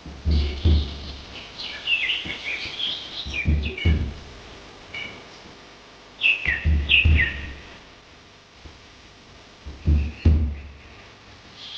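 Birds chirping in a few short runs of quick falling chirps, with low thuds at the same moments.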